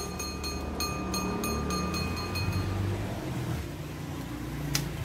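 A motor vehicle's engine running, with a low hum that wavers in pitch. Over it, a rapid ticking of about six a second stops a little past halfway.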